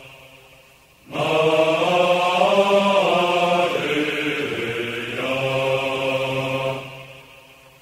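Chanting voices, a slow held phrase that begins about a second in after a quiet pause and fades out near the end.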